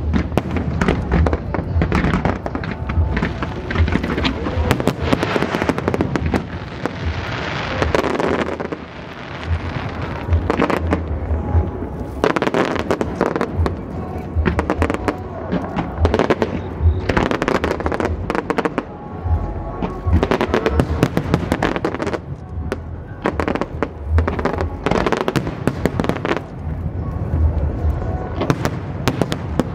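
Fireworks display: aerial shells bursting in a rapid, almost continuous barrage of bangs and crackles over deep thumps, easing briefly about eight seconds in before building again.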